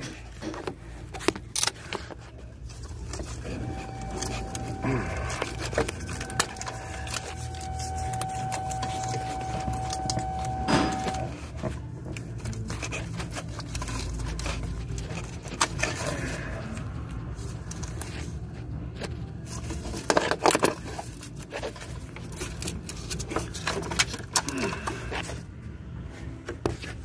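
Scattered metallic clinks, clicks and scrapes of hand tools and parts being worked in a car's engine bay, over a steady low hum; a faint steady tone sounds for several seconds early on.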